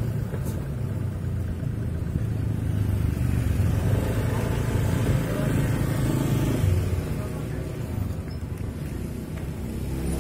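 Road traffic passing at close range, with car and motorcycle engines running as a steady low rumble that swells in the middle as a motorcycle rides past.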